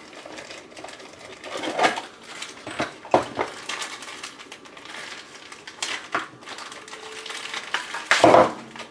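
Packaging being handled: a gauge lifted out of its cardboard box and a clear plastic parts bag crinkled in the hands, with scattered small knocks and rustles. The loudest rustle comes near the end.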